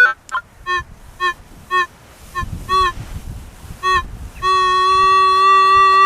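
Metal detector signal tones: a string of short pitched beeps, about two or three a second, as the coil is swept over the ground, then about four seconds in a single long steady tone held on a target.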